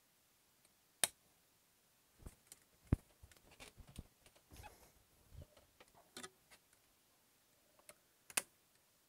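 Sporadic sharp clicks and light knocks, with small rattles between them, of hands working the fittings of a boat's bimini top frame and windshield. The two loudest clicks come about a second in and near the end.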